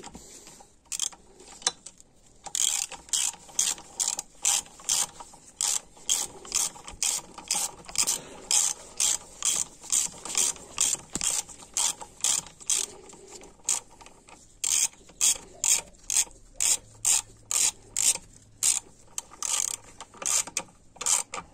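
Hand ratchet with a 14 mm socket clicking steadily, about two clicks a second, as it runs down bolts on a 41TE automatic transmission's case. There is a short break about two-thirds of the way through before the clicking picks up again.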